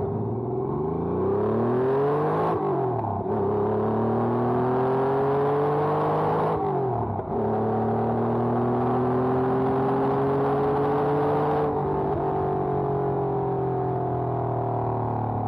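1992 Porsche 911 Carrera 2's air-cooled 3.6-litre flat-six heard from inside the cabin, pulling up through the revs with two upshifts, one about two and a half seconds in and one about seven seconds in. About twelve seconds in it eases off, the revs slowly falling.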